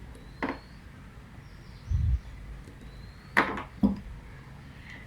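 Hand-work noises from fitting earth wires to a distribution board: a few short clicks and scrapes, with a dull low thump about two seconds in and the sharpest scrape and click about three and a half seconds in.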